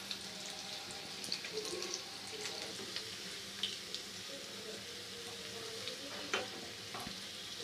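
Batter-coated cauliflower florets deep-frying in hot oil, a faint steady sizzle, with a few light clicks as tongs turn the pieces in the pan.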